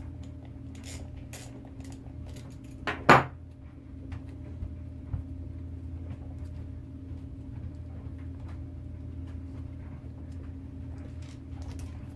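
Small clicks and clatter of hand tools and small parts as the wheel is taken off an RC crawler's axle. There is one louder clack about three seconds in, over a steady low hum.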